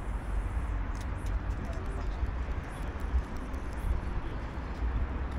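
Wind buffeting the microphone as a steady, uneven low rumble, with faint indistinct voices in the background.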